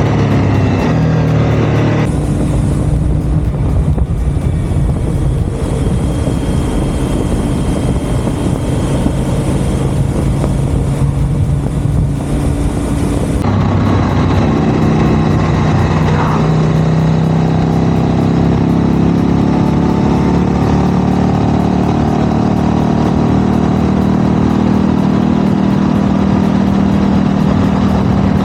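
Suzuki V-Strom 1050DE's V-twin engine running through an aftermarket GRMoto Tri-Oval slip-on exhaust, a deep, steady note. The sound changes abruptly about two seconds in and again around halfway, and the pitch then slowly rises.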